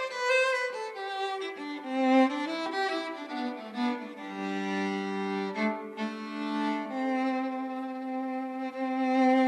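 Bowed violin playing an instrumental passage between sung verses: a melody with vibrato at first, then long held low notes with a line moving above them.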